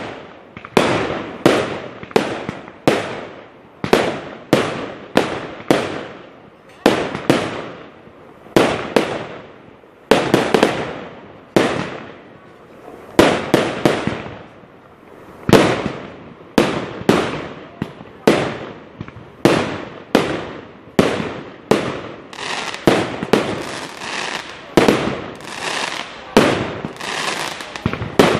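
Aerial fireworks shells bursting in a steady barrage, a sharp bang about every second, sometimes two close together, each dying away in a short echo.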